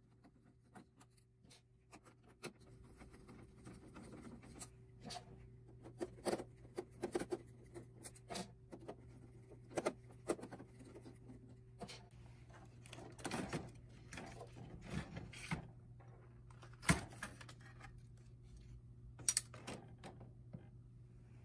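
Faint scattered clicks, knocks and scrapes of hand work on a laser printer: a Phillips screwdriver turning out the fuser's screws, then the plastic-and-metal fuser assembly knocking and sliding as it is pulled out near the end. A faint steady low hum lies underneath.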